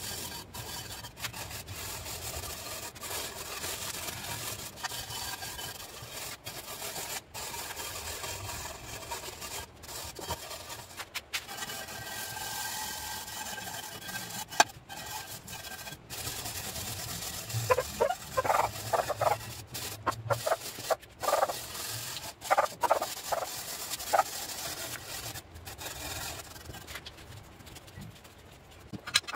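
Hand tool scraping and brushing paint softened by paste paint remover off diamond-plate steel, a steady raspy rubbing. About two-thirds of the way in, a run of short, loud animal calls rises above it.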